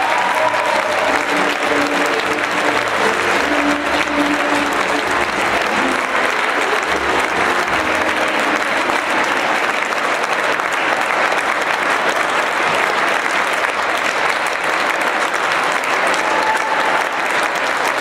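Audience applauding steadily: a dense, even clapping that holds at one level throughout.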